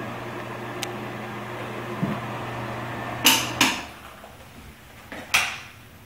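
A steady low hum stops suddenly about three and a half seconds in. Two short knocks come just as it stops, and another knock follows near the end.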